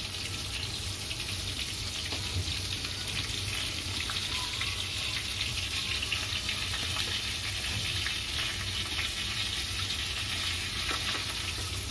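Sesame-coated chicken mince patties deep-frying in hot oil: a steady sizzle with fine crackling, the sesame seeds popping in the oil.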